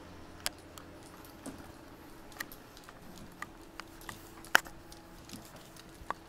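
Handling noise from a handheld camcorder being swung about: scattered light clicks and taps, the loudest about four and a half seconds in, over a faint steady hum.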